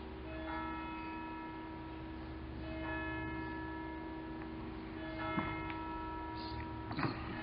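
Bell-like chimes ringing in slow, evenly spaced strokes, a new chime about every two and a half seconds, each note ringing on, over a low steady hum. A couple of short sharp clicks near the end.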